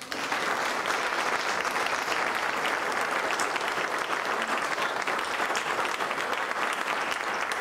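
An audience applauding: the clapping breaks out all at once and holds at an even level.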